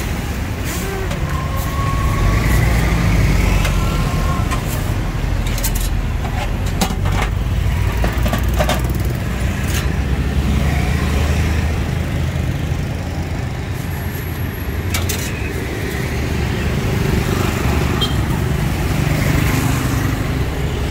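Street traffic ambience: a steady low rumble of passing vehicles, with a few sharp clicks and knocks scattered through the middle.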